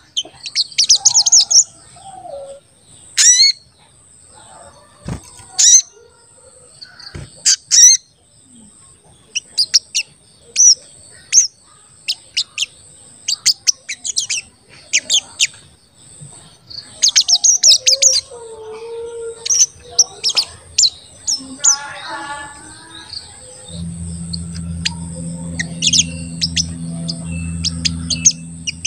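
A sogon, the brown-throated sunbird, singing bunches of sharp, high, quick "cuit cuit" chirps and short sweeping notes, with brief pauses between the bunches.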